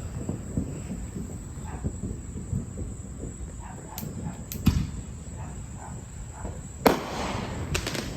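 Crickets chirping in a steady high drone, with a few sharp pops of fireworks. The loudest is a crack about seven seconds in, followed by a short hiss.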